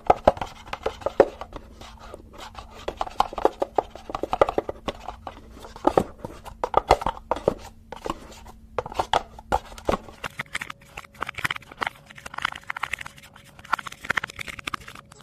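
Close-miked ASMR trigger sounds: rapid, irregular taps, clicks and scratches from hands working an object, with a change in character about ten seconds in.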